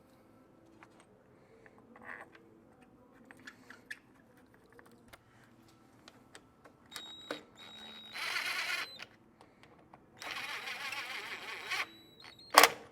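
Small clicks from handling plastic pump parts and bolts. About two-thirds of the way through come two short bursts of rapid rattling tool noise, and a single loud knock follows near the end.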